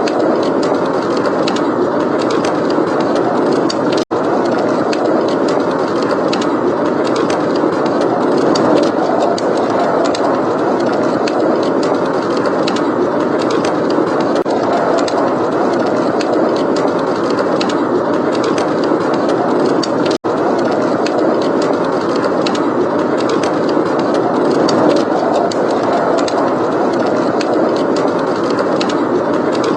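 Steady blizzard wind, a dense rushing noise, with a wood fire crackling throughout in small sharp pops. The whole sound cuts out for an instant twice, about 4 and 20 seconds in.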